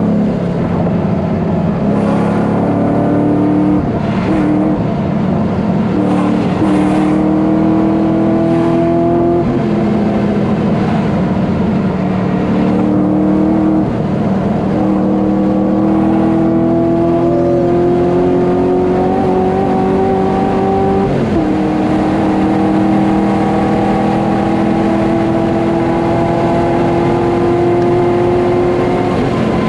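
V8 engine of an LS3-swapped Nissan 350Z pulling under acceleration. Its note climbs steadily and drops back at each upshift, four times over.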